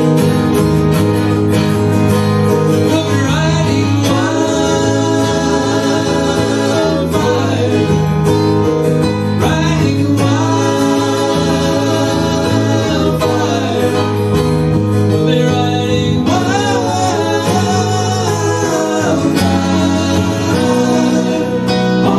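Small acoustic band playing a country-style song: strummed acoustic guitars, electric bass and keyboard under men's singing.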